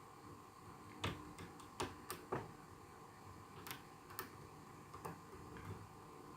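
Faint, irregular metallic clicks of a hook pick lifting and setting pins inside a pin-tumbler lock held under tension, about seven sharp ticks, most of them bunched together about a second in.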